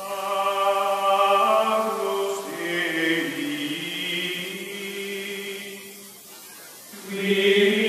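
Outro music of chant-like voices holding long, sustained chords. It fades down about six seconds in, then swells back up near the end.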